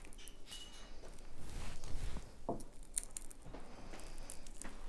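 Hard-boiled quail eggshell being peeled away by fingers: faint, scattered small crackles and ticks as the shell and its leathery membrane break off.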